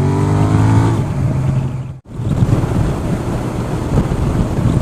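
Motorcycle engine pulling and accelerating, its pitch rising steadily, heard from the rider's helmet. About two seconds in, the sound cuts out for an instant, and heavy wind noise buffets the helmet microphone after that.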